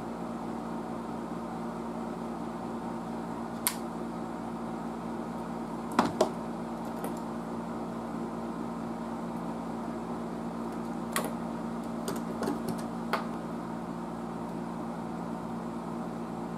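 A few light, sharp clicks and taps of a soldering iron and clip lead working a small metal terminal, over a steady low electrical hum.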